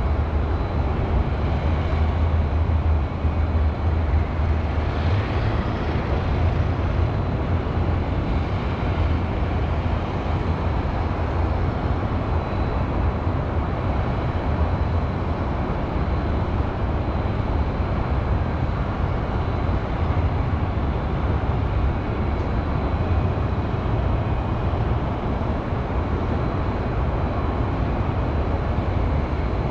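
Steady hum of highway traffic with a deep low rumble, even throughout, with no single vehicle standing out.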